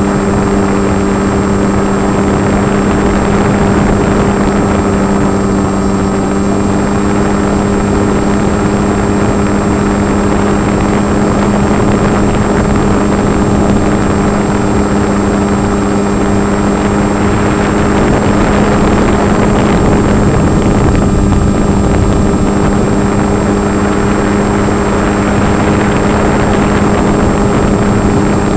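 Electric brushless motor and propeller of a Hobby King EPP FPV model plane, heard from the camera mounted on it in flight: a steady, loud hum over rushing wind, swelling a little for a few seconds past the middle.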